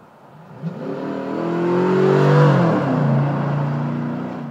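2008 GMC Sierra 1500 V8 pickup accelerating past on the road. The exhaust rises in pitch as it closes in and is loudest about two seconds in. It then drops in pitch as it passes and carries on at a lower, steady pitch.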